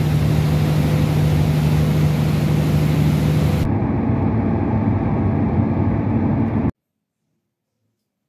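A ferry's engine hums steadily under the rush of its wake and wind. At about three and a half seconds this cuts to the duller drone of a car driving, heard inside the cabin. The sound then stops abruptly at about six and a half seconds.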